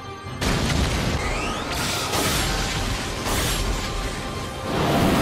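Anime battle sound effects: a run of explosions and booms, several loud bursts following one another after a short drop at the start, over background music.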